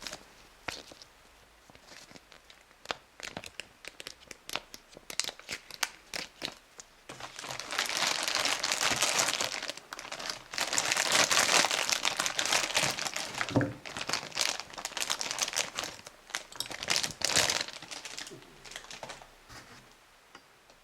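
Crinkly packaging of a Playmobil surprise egg being handled and torn open: scattered crackles at first, then long dense stretches of crinkling, with one low knock about two-thirds through.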